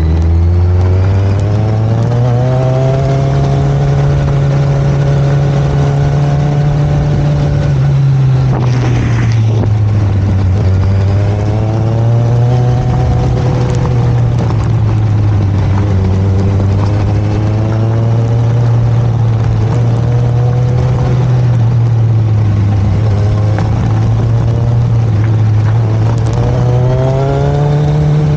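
Motorcycle engine running under way, its pitch climbing and falling several times: rising over the first few seconds, dropping about eight seconds in, climbing again, and rising once more near the end.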